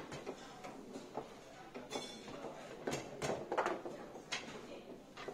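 Foosball in play on a JX 125 table: the ball struck by the rod-mounted figures and the rods clacking, a string of short, sharp knocks and taps, thickest about three to four and a half seconds in.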